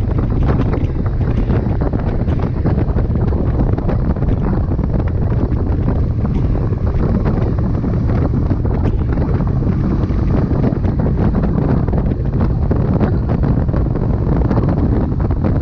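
Loud, steady wind buffeting the microphone: a low rumble with continual flutter and no letup.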